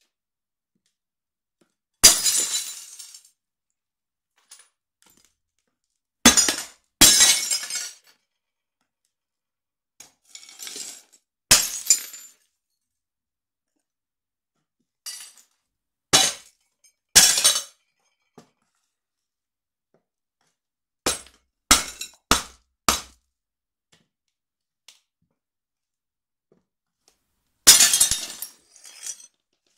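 Ceramic dinner plates cracking and shattering under the stomp of a platform high heel: about a dozen separate crashes spaced a few seconds apart, each followed by the clink of shards.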